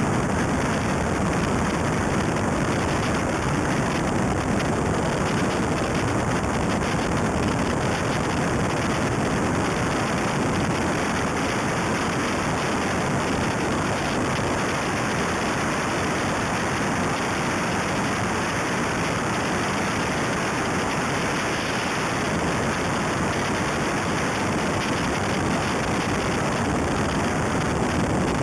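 Steady rush of wind buffeting an outside-mounted camera microphone on a Mitsubishi Lancer Evo III rally car at speed on gravel, with tyre and road noise blended in.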